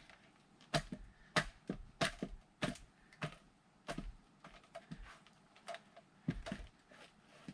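Sharp wooden knocks and clacks from firewood being split and handled: an irregular string of short strikes, about one or two a second, a few much louder than the rest.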